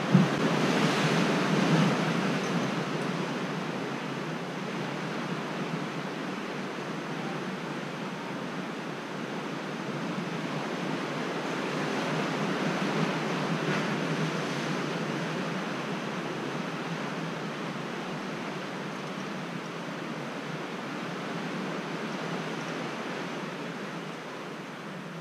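Sea surf washing against the rocks at the foot of a coastal cliff: a steady rushing noise that slowly swells and eases. A single sharp knock right at the start.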